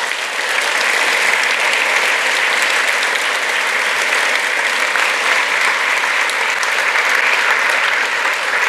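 Audience applauding steadily: a large hall full of people clapping at the end of a talk.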